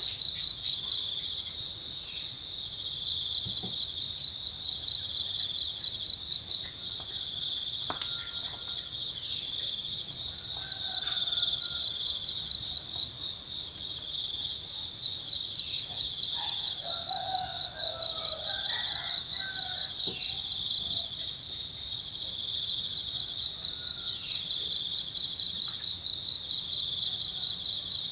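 Crickets chirping in a steady chorus, a high shrill trill with louder bouts of rapid chirps, about four a second, that come and go every few seconds.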